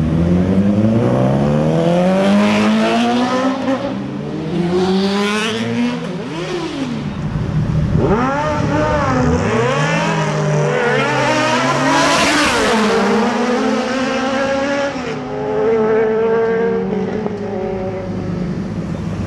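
Motorcycle engines accelerating, each pitch climbing and then dropping back at the gear changes, over several passes. About eight seconds in, one bike revs hard up from low.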